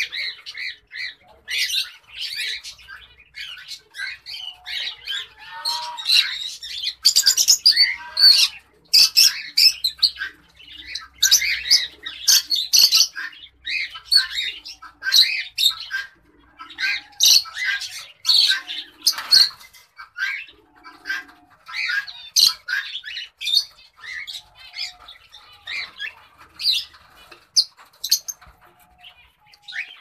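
Cockatiels calling during mating: a dense string of short, high chirps and squawks, some with brief bending notes.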